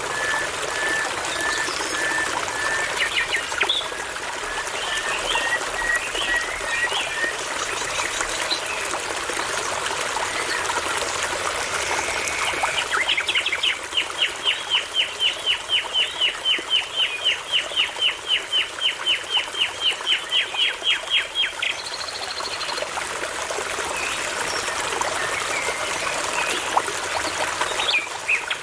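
Songbirds singing over a steadily babbling brook. A run of short, evenly spaced notes comes in the first several seconds, and a long rapid series of repeated notes, about four a second, runs for around eight seconds in the middle.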